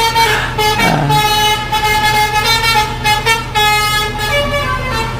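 A lorry's musical 'telolet' (basuri) air horn playing a tune of short notes that change in pitch, over the steady low running of the lorry's engine. A sliding tone drops sharply in pitch about half a second in.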